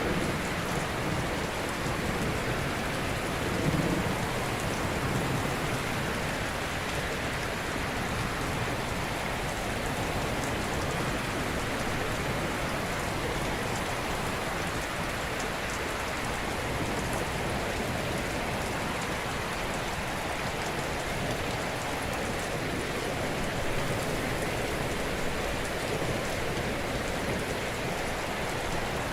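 Steady rushing water noise, with a deeper low rumble in the first few seconds that peaks about four seconds in.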